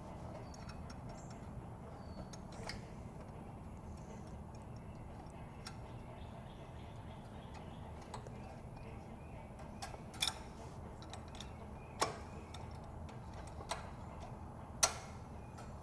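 Scattered sharp clicks and taps of hand tools and small metal parts during carburetor reassembly on a small generator engine, a few seconds apart, the loudest near the end, over a steady low background hum.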